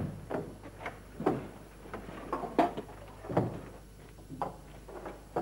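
A door thudding shut at the start, then a series of irregular knocks and thumps, footsteps and light knocks of people moving about a room.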